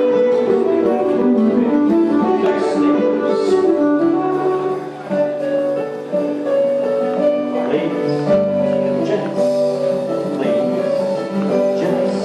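Live contra dance band playing a dance tune: a melody of held notes over steady chordal accompaniment.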